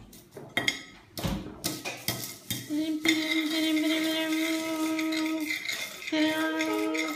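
Metal cutlery clinking and tapping on ceramic plates, with several sharp knocks in the first few seconds. Then a steady pitched tone is held for about three seconds, breaks off, and comes back near the end.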